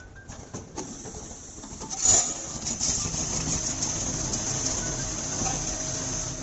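Automatic nail counting and boxing machine running: a steady mechanical clatter with a high hiss and several short knocks, the loudest about two seconds in.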